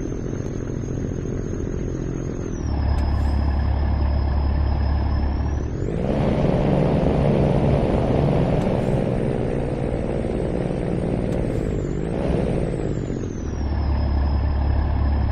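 Diesel engine of an Irizar PB 6x2 coach running with a deep, steady drone. About six seconds in it revs up and is held higher with a thin high whine. It eases back down to the deep drone near the end.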